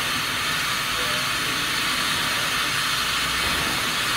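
Caledonian Railway '439' class 0-4-4T steam tank locomotive standing in steam, with a steady hiss of steam escaping low around its cylinders.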